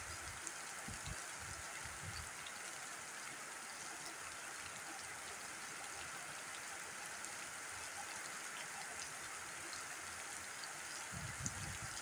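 Steady rain falling on bare ground: an even hiss with scattered ticks of single drops. Low rumbles come and go in the first two seconds and again near the end.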